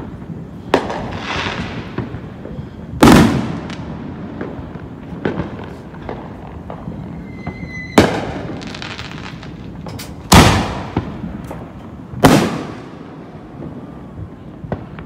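Aerial fireworks going off: five sharp bangs a few seconds apart, the loudest about three, ten and twelve seconds in, each trailing off in a crackling, echoing tail. A short whistle comes just before the bang about eight seconds in.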